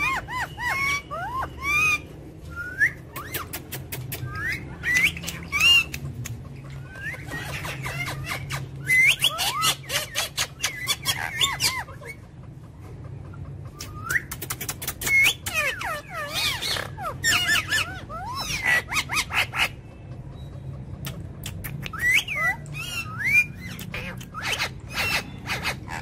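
Ring-necked parakeets calling: short whistled chirps that glide up and down, mixed with harsh squawks, coming in clusters with brief pauses between.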